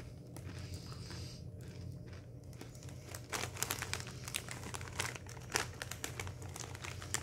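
Plastic chip bag crinkling as it is handled and turned over. The crinkling is faint at first and gets busier and louder from about three seconds in.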